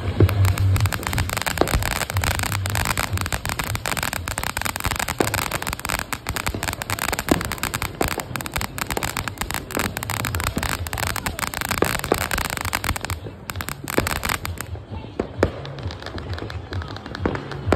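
Ground fountain firework spraying sparks: a steady hissing crackle of rapid pops that fades out near the end, with separate bangs of other fireworks going off around it.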